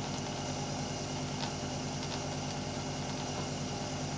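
Aoyue Int 852A+ hot air rework station's built-in air compressor running steadily at maximum airflow with the heating element off, a noisy, vibrating hum: the station is in its cool-down cycle before it switches itself off.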